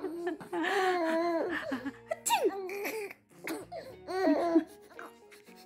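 Baby laughing and squealing in three bursts: a drawn-out laugh at the start, then two shorter high-pitched ones about two and four seconds in.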